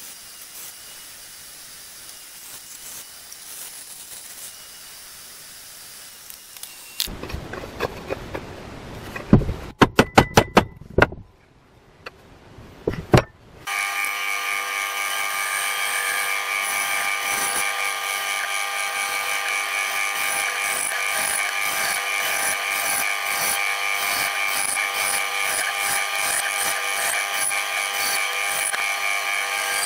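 Benchtop band saw cutting a wooden axe-handle blank: from about halfway on, a loud steady high whine over a fast, even flutter. Before that it is quieter, with a quick run of sharp knocks about a third of the way in.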